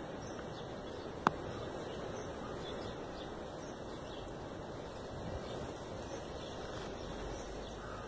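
Steady outdoor background noise with faint bird calls, broken by a single sharp click about a second in.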